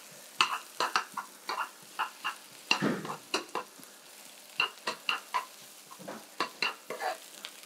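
Sliced onions sizzling in a non-stick frying pan, stirred with a metal spoon that clicks and scrapes against the pan in short, irregular strokes, about two to three a second, with one heavier knock about three seconds in.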